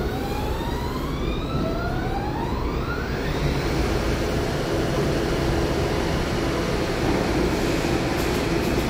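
A rising electric whine, two tones climbing together for about three and a half seconds, then a steady hum and rumble from the subway train standing at the platform.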